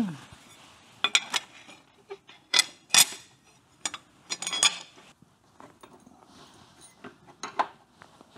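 Metal motorcycle parts clinking and knocking as an engine-mount spacer and bracket are handled and fitted: a run of sharp clinks in the first five seconds, then one more near the end.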